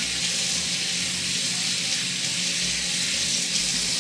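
Kitchen faucet running steadily into the sink, a constant hiss of falling water that was turned on just before.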